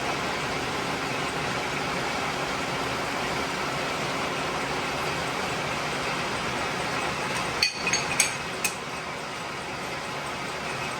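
1943 South Bend lathe running steadily, with the even whir of its motor and gear train while it cuts a deep internal thread. About three-quarters of the way through comes a quick cluster of four sharp, ringing metallic clinks.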